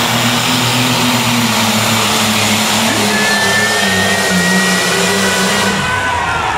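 Tractor-pulling machine's engine running at high revs under full load, a loud steady drone with a thin whine riding above it. The engine eases off near the end.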